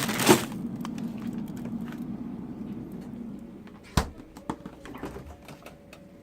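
Refrigerator being handled: a brief loud rustle of a plastic-wrapped food pack just after the start, then one sharp knock about four seconds in, like a freezer door shutting, followed by a few light clicks. A low steady hum fades over the first few seconds.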